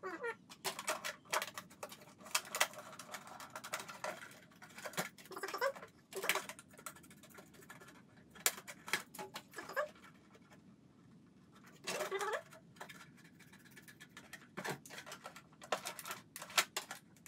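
A white plastic jug being cut apart with a knife and scissors: irregular crackling clicks and scrapes as the blade works through the plastic, with a longer creak of bending plastic about twelve seconds in.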